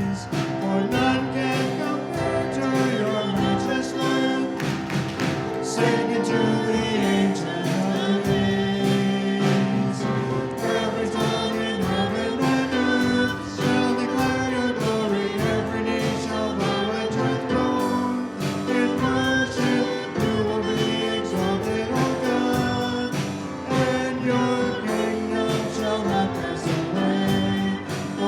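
Congregational worship singing with instrumental accompaniment: a sung hymn or worship song that continues steadily.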